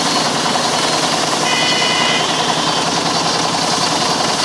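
Small engine running steadily with a fast, even chattering rhythm.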